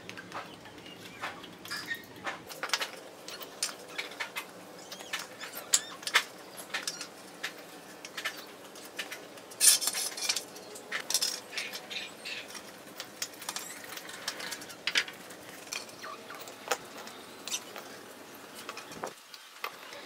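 Clay bricks clinking and knocking as they are set down dry on a concrete floor and pushed into line against a metal straightedge: scattered sharp clicks at an uneven pace, the loudest about ten seconds in.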